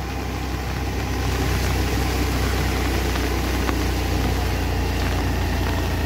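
Small vehicle engine running steadily as it climbs a steep wet road, with a steady hiss of wind and wet tyres over the engine hum.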